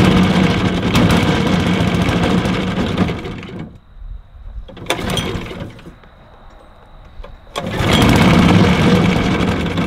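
Small single-cylinder Briggs & Stratton engine on a surface-drive mud motor running, then dying about three and a half seconds in; a short sputter follows about five seconds in, and the engine is pull-started and runs again from about seven and a half seconds. The stalling is the random dying that the owner blames on a faulty low-oil sensor.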